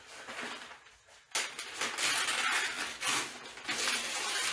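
Stiff automotive masking paper crinkling and rustling as a large sheet is unfolded and spread by hand over a bumper cover; soft at first, it gets much louder about a second in and stays loud.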